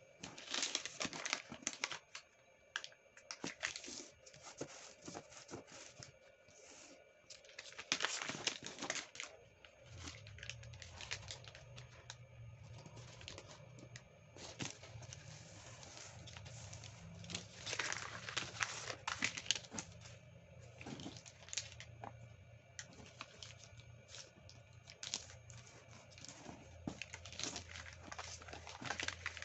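Thin, crinkly origami paper rustling and crackling as hands fold and crease it, in irregular clusters of sharp crinkles.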